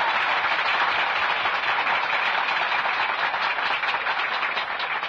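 Large crowd applauding, a dense patter of many hands clapping that begins to die away near the end.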